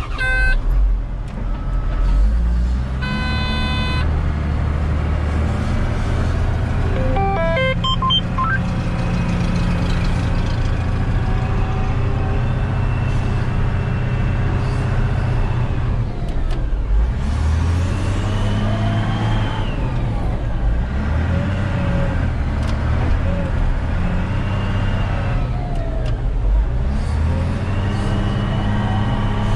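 Caterpillar wheel loader's diesel engine running, heard from inside the cab, its engine speed rising and falling a few times as it drives. A brief horn-like tone sounds about three seconds in.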